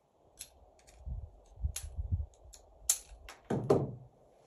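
Clicks and knocks of a Walther P22 .22 pistol being handled to clear a spent shell casing stuck in its chamber. Several dull thumps come about a second in, and the loudest knock comes near the end.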